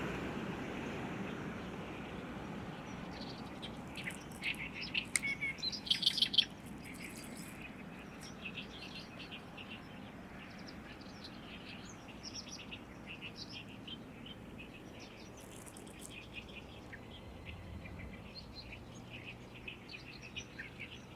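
Great reed warbler singing: a loud run of quick, repeated notes about four to six and a half seconds in, then fainter song continuing on and off.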